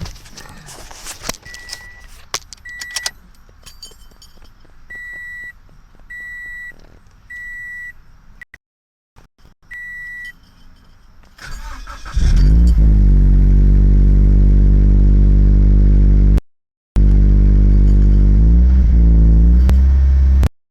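A car's warning chime beeps about once a second, then the Scion FR-S's 2.0-litre flat-four engine starts about twelve seconds in and runs loudly, with a rev near the end. The owner suspects a faulty lifter making a noise in the engine, with no check-engine light.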